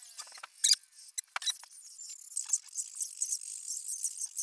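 Metal engine parts and hand tools clinking as they are handled at the front of a bare diesel engine block. A few sharp clinks come in the first second and a half, then a quick run of light clicks.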